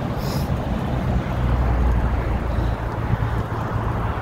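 Wind rushing over a phone microphone while cycling, a steady low rumble with a brief high hiss just after the start.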